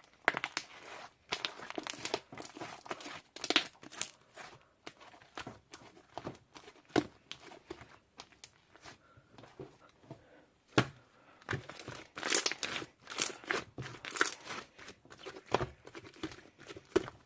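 Irregular crinkling and rustling of something crinkly being handled, with many sharp clicks and taps, busiest in the second half.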